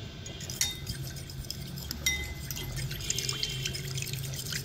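A metal fork stirring a thin vinegar-and-soy-sauce marinade in a bowl: quick light clinks and scrapes of the fork against the bowl, a few short rings, and liquid swishing.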